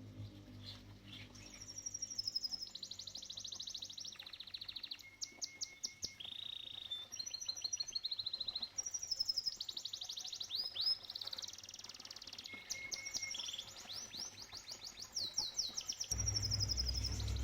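Domestic canary singing: rapid rolling trills of quickly repeated notes at several pitches, some high and some lower, broken by a short held whistle. Near the end a louder low sound comes in under the song.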